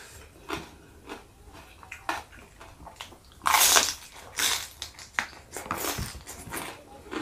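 A person biting into and chewing a mouthful of raw vegetables dipped in sambal, close to the microphone: scattered crisp crunches, the loudest bite about three and a half seconds in, followed by smaller chewing crunches.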